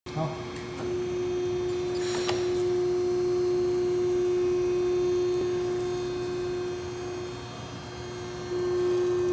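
Horizontal bending machine running with a steady electric hum. The hum drops for about a second near the end and comes back. There is one short click about two seconds in.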